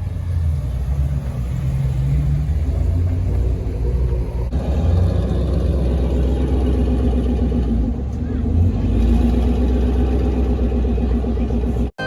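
V8 muscle car engine rumbling at a low idle, with a light blip of revs about three quarters of the way through; the sound cuts off suddenly at the very end.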